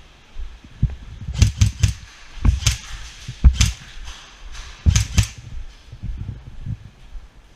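Airsoft gunfire: about seven sharp single shots in short groups of one to three. Low thuds run underneath, and the whole track is distorted by the GoPro's mismatched housing back.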